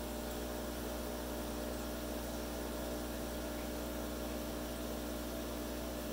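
Aquarium equipment humming steadily: a drone of several fixed tones over an even hiss, unchanging throughout.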